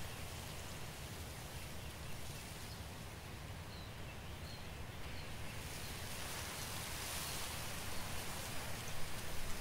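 Steady outdoor forest ambience: an even rushing noise with a deep rumble underneath, growing a little louder in the second half, with a few faint short high chirps about four seconds in.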